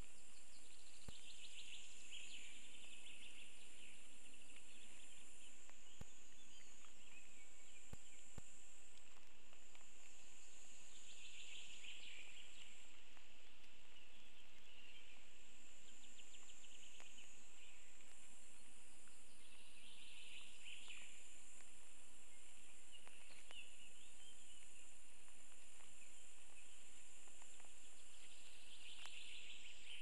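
Forest ambience: a steady high-pitched hiss, with a short trilling bird song repeating about every nine seconds.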